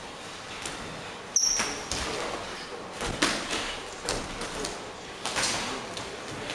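Punches from boxing gloves landing during sparring: a string of irregular sharp thuds, the loudest about a second and a half in, together with a brief high squeak.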